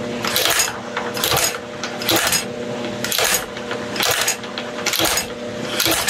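A belt-driven snap-button press cycling, its ram striking with a sharp metallic clack about once a second over a steady motor hum. The machine is being test-run after its slot was adjusted to cure a double strike, and the mechanic calls it okay.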